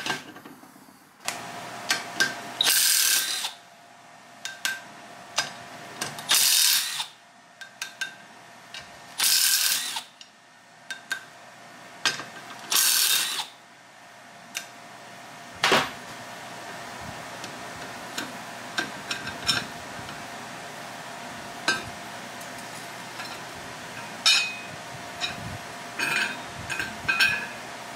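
Cordless power driver run in four short bursts of about a second each, a few seconds apart, backing out the fasteners on a dozer's flywheel torsion isolator plate. Near the end come a sharp metal knock and light metal clinks as the parts are handled.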